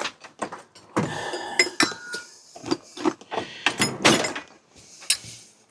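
Metal tool clinking and knocking against a bicycle headset, a quick irregular series of sharp metallic taps, a few of them ringing briefly, as the headset cups are worked out of the frame.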